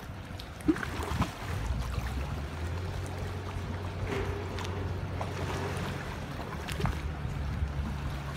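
A boat engine running with a steady low hum that comes in after a second or so, with a few short knocks over the top.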